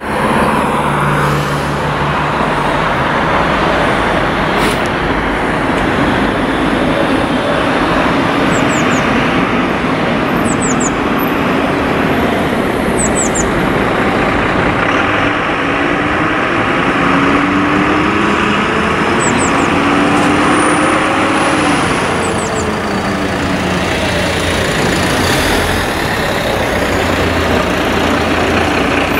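Steady road-traffic noise mixed with the diesel engines of fire-brigade vehicles pulling out of the station yard on an alarm. About halfway through, an engine is heard rising in pitch as it picks up speed.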